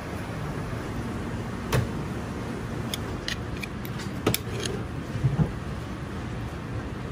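Light knocks, taps and clicks of hands laying a prawn on wafer paper on a plastic cutting board and spreading shrimp paste over it with a metal spatula, over a steady kitchen hum. The sharpest knock comes a little before two seconds in, another just past four seconds, with a couple of soft thumps about a second later.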